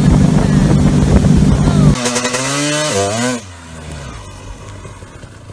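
A motorboat's engine running steadily under the rush of wind and wake for about two seconds. It is cut off abruptly by a pitched whine that dips and rises for about a second and a half, then a much quieter stretch.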